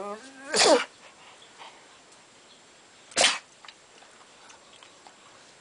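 Small Pekingese dog giving two short, loud outbursts: a sharp yap falling in pitch about half a second in, and a shorter, noisy snort-like burst about three seconds in. Between and after them there are only faint small ticks.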